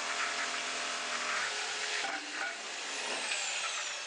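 Bosch GST jigsaw sawing through wood with its motor running steadily. About two seconds in, the cut ends and the motor is released, its whine falling as it winds down.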